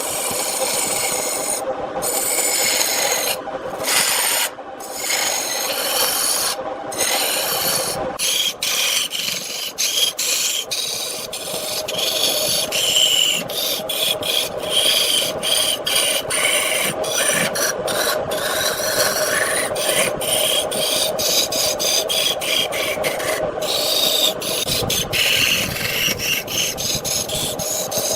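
Wood lathe running with a tool held against the spinning wood, a continuous rasping scrape over a steady hum. The scrape breaks off for an instant many times as contact is lost.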